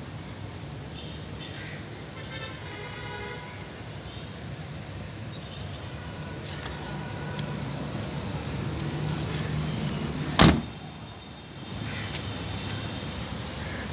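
A car door is shut once, a single sharp thump about ten seconds in that is the loudest sound, over a steady low background hum.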